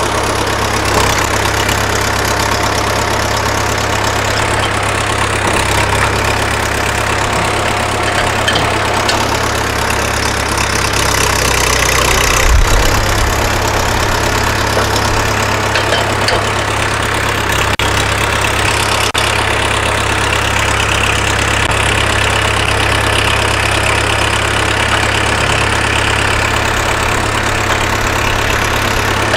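International Harvester 574 tractor engine running steadily at idle, started to try out its newly replaced clutch, with one brief louder moment about twelve seconds in.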